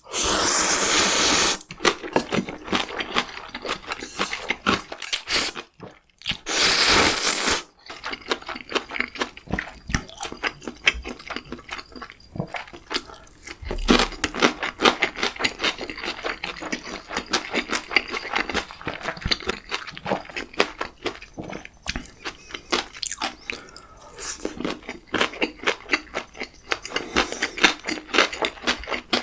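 Close-miked eating of ramyeon and gimbap: wet chewing with many small mouth clicks and crackles. Two long, loud slurps, one at the very start and one about six and a half seconds in.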